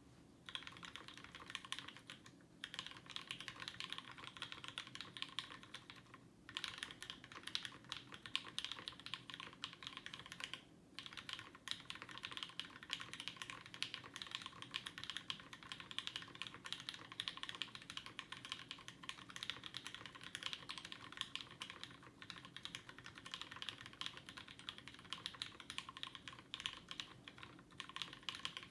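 Typing on an ALF DC60 mechanical keyboard with lubed, filmed Gateron Yellow linear switches, a carbon fibre plate with foam between plate and PCB, and GMK keycaps: a steady, fast stream of keystrokes with brief pauses about two and a half, six and eleven seconds in.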